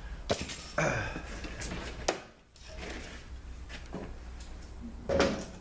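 Metal parts of a 200-4R automatic transmission being handled and set down on a workbench during teardown: a handful of separate clinks and knocks, the loudest near the end, over a low steady hum.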